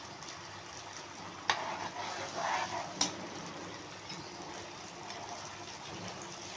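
Sauce bubbling and sizzling in a nonstick frying pan while a steel spoon stirs it. There is a sharp click of the spoon against the pan about three seconds in.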